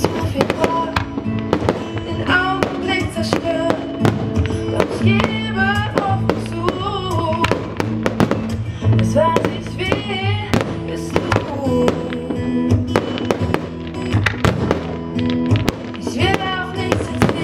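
Music with a singing voice plays over a fireworks display: firework shells and ground effects crack and bang many times, irregularly, throughout.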